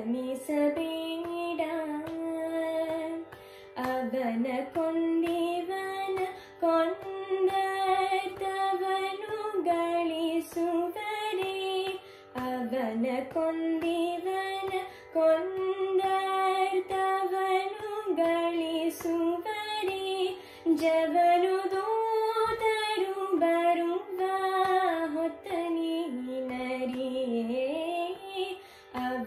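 Young woman's voice singing Carnatic music in raga Bhagyashree: long, gliding, heavily ornamented phrases broken by short pauses for breath, over a steady drone.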